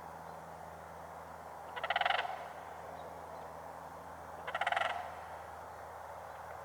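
Sandhill crane giving two rattling calls, each about half a second long, the second coming about two and a half seconds after the first.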